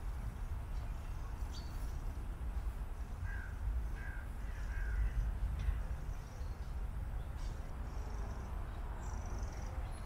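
A bird calling three times in quick succession, crow-like caws, over a steady low rumble.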